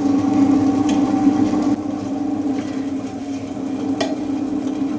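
Tabletop wet grinder running with a steady hum as its stone rollers turn in the steel drum, while finely ground rice batter is scooped out by hand with wet swishing. A short knock about four seconds in.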